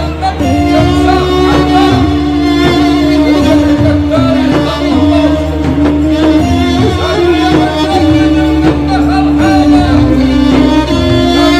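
Middle Eastern-style background music: a sustained, ornamented melody line over a steady, repeating low accompaniment.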